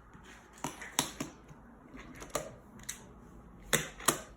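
Magna-Tiles plastic magnetic building tiles clicking together as they are placed one by one: a series of sharp, irregular clicks, the two loudest near the end.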